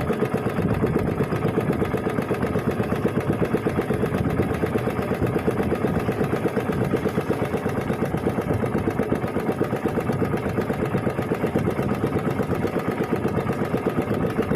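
Small engine running steadily at a constant speed, with a fast, even pulsing.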